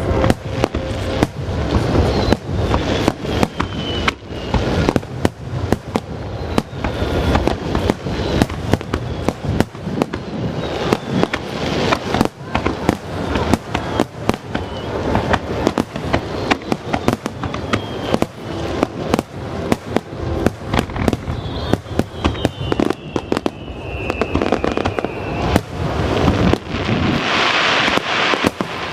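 Aerial fireworks shells bursting in a continuous rapid barrage of bangs. Now and then falling whistles can be heard, and a crackling hiss comes near the end.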